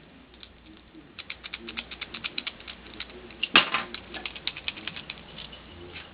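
Metal lock pick clicking against the pin stacks inside a Chubb padlock during single pin picking: a quick run of small clicks, several a second, with one louder click a little past halfway.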